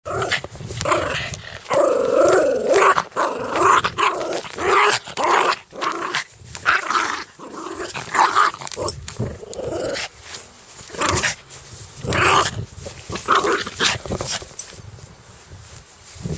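A dog growling fiercely in a series of irregular bursts roughly a second apart, each with a wavering pitch, easing off near the end.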